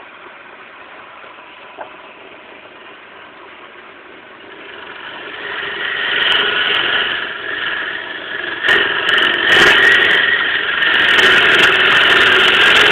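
A fifty-odd-year-old wood lathe running with a walnut blank spinning on it. From about five seconds in, a turning tool bites into the wood and the sound grows louder and harsher, with sharp clicks in the second half.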